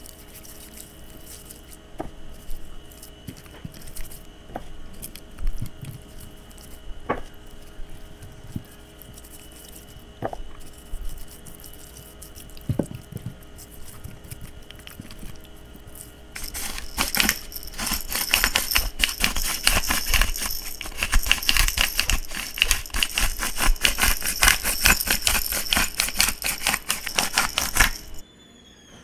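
Hands rubbing seasoning onto raw chicken in a glass baking dish, with scattered light taps over a faint steady hum. A little past halfway a pepper grinder starts, a dense, rapid crunchy clicking that stops abruptly just before the end.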